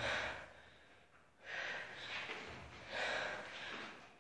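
A person breathing hard, in sharp, noisy breaths about one every second and a half.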